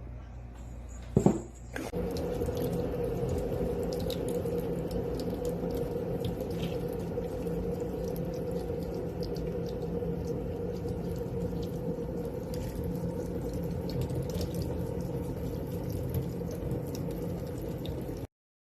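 A sharp knock about a second in, then water running steadily, which cuts off suddenly near the end.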